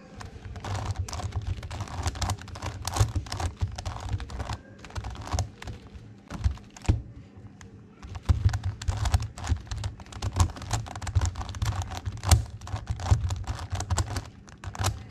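Plastic megaminx puzzle being turned rapidly by hand, a dense run of clicking and clacking as its faces snap round while a move sequence is repeated, easing briefly about six seconds in.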